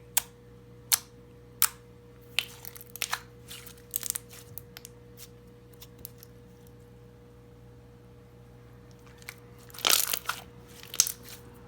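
Coated clear slime being pressed and worked in the hands, giving sharp clicks and pops: about one a second at first, then a quieter stretch, then a quick cluster of them near the end.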